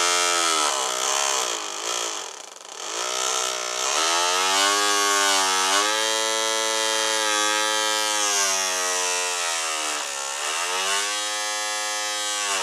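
Small DC motor from a solar butterfly garden ornament, run off a solar panel under a lamp, whining as it spins a homemade propeller in the air. Its pitch sags and recovers several times as its speed changes.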